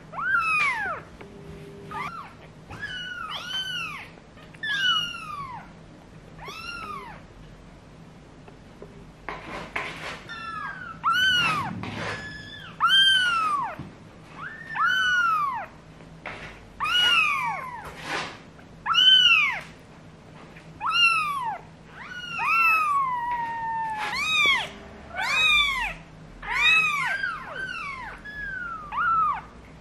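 An 18-day-old kitten mewing over and over, about once a second: thin, high-pitched mews that rise and then fall in pitch.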